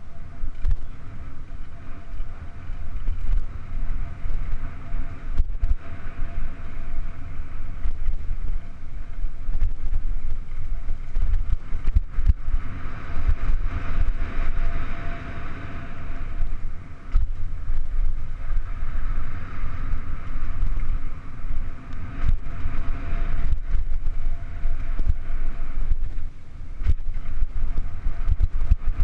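Mountain bike ridden fast down a dirt forest trail: heavy wind buffeting on the bike-mounted camera's microphone over the rolling hiss of tyres on dirt, which swells and fades with speed, and scattered knocks and rattles from the bike over bumps.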